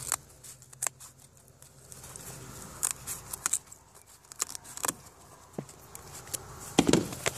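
Scissors snipping through sheet balsa core: a string of separate, sharp, irregularly spaced cuts.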